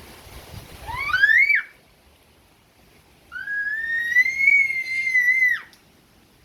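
High whistling: a short whistle gliding upward about a second in, then a long, nearly steady whistle that dips and cuts off near the end.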